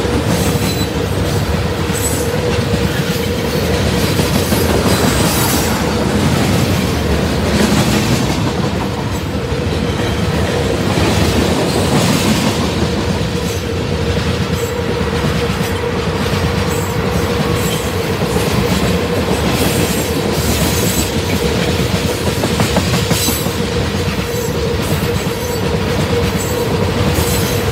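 Freight train tank cars rolling past, their wheels clicking over rail joints, with a steady whining tone running underneath.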